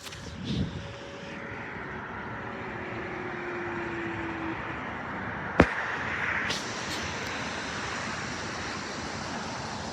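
Steady road traffic noise, with a faint distant outdoor warning siren tone that slides slowly lower and fades out about halfway through. A sharp click comes about five and a half seconds in.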